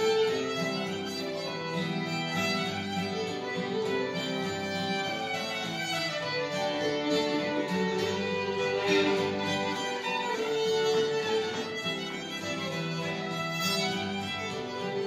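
Old-time fiddle tune played on fiddle with an acoustic guitar accompanying, the guitar keeping a steady boom-chuck rhythm under the fiddle's melody.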